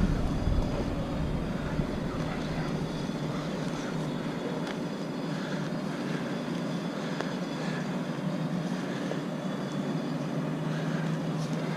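An engine runs steadily, a constant drone, with a low rumble that fades out over the first few seconds.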